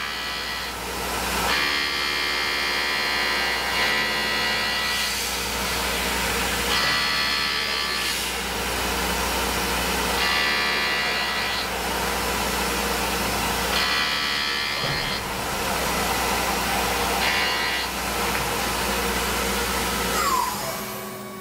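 Tormach PCNC 1100 mill spindle running steadily while a custom tool-steel thread-milling form tool cuts an aluminium part, with a higher-pitched ringing cutting noise coming and going in stretches of one to three seconds as the tool engages. Near the end a short falling whine sounds and the level drops.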